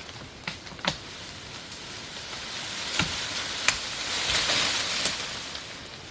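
Rain falling: a steady hiss with scattered sharper drop ticks, swelling about four seconds in and easing near the end.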